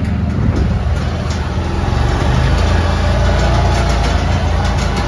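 Small utility vehicle's engine running as it drives, heard from inside its open cab, getting a little louder about two seconds in. Light clicks and rattles sound over it.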